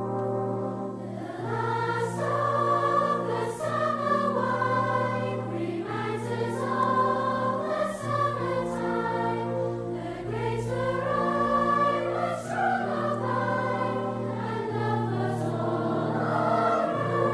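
Music with a choir singing over sustained low notes.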